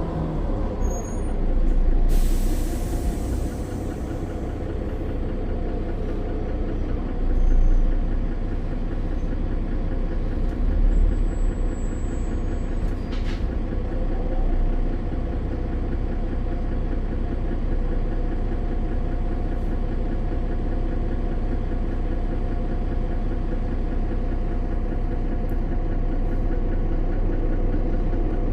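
Mercedes-Benz Citaro O530 bus's OM906 6.4-litre diesel engine running steadily, with a thrashy sound. About two seconds in, a hiss of compressed air lasts about two seconds, typical of the bus's air brakes, and a sharp click comes about halfway through.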